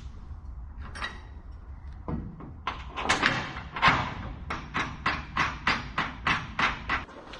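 A run of sharp knocks, about three a second, starting a little under three seconds in, during work fitting J-bolts to a shed's roof purlins; a few scattered knocks come before it.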